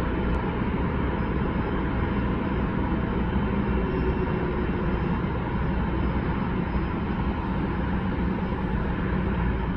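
Steady rumble of a twin-engine jet airliner on final approach, even in level throughout.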